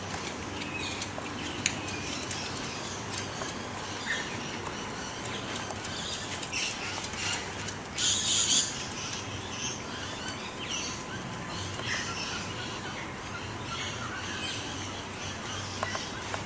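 Scattered bird chirps and calls over a steady low hum, with a short, louder harsh sound about eight seconds in.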